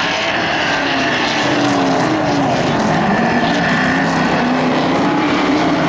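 A pack of dirt-track stock cars racing through a turn, their engines running loud, the pitch rising and falling as the drivers lift and get back on the throttle.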